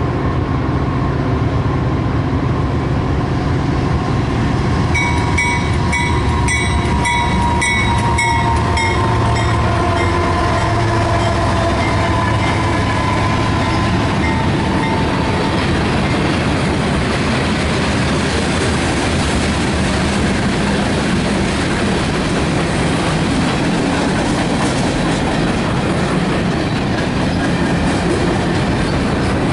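A train passing close by, its cars rolling past in a steady rumble with clickety-clack. In the first half a held tonal sound from the train sinks slightly in pitch, and about five seconds in a rapid metallic ringing sounds for a few seconds.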